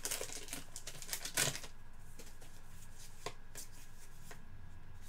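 Trading cards being flipped and slid against each other by hand: a quick run of soft clicks and rustles in the first second and a half, then a few isolated taps.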